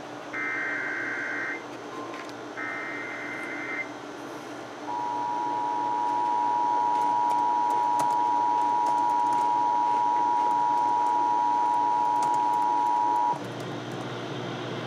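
Emergency Alert System alert on AM/FM broadcast radio. Two short digital header bursts of about a second each encode a severe thunderstorm warning. Then the steady two-tone EAS attention signal sounds for about eight seconds and cuts off abruptly.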